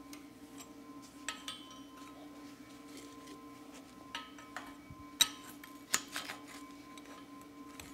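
Light metallic clinks and taps as steel parts are handled and set in place on a steel frame: a scattering of separate clicks, the loudest about five and six seconds in, over a faint steady hum.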